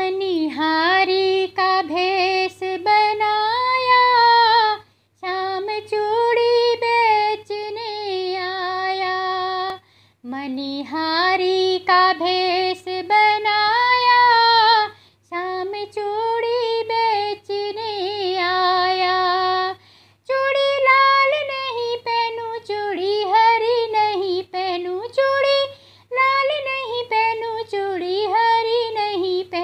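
A high female voice singing a Hindi devotional Krishna song unaccompanied, in melodic phrases of about five seconds with short breaks between them.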